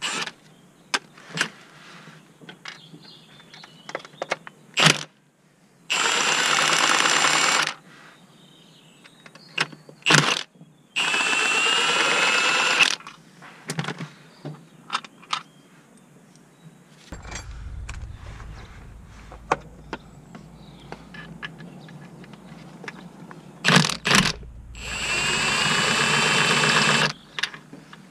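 Cordless impact wrench hammering on bolts at the gearbox underside in three bursts of about two seconds each, about six, eleven and twenty-five seconds in, with a whining motor. Between the bursts there are metallic clinks and knocks of tools and parts.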